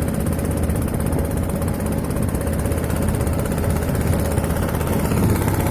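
Steady low engine rumble running evenly, with no change in speed.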